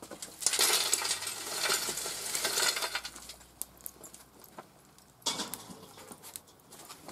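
Lump charcoal tipped out of a metal chimney starter onto a steel plate, the pieces clinking and clattering for about two and a half seconds, then a second, shorter clatter just after five seconds.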